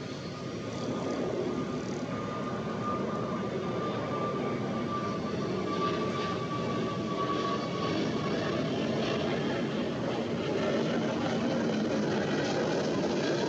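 Jet airliner engines running, a steady rushing noise that grows louder, with a thin high whine that slowly falls in pitch during the first eight seconds or so.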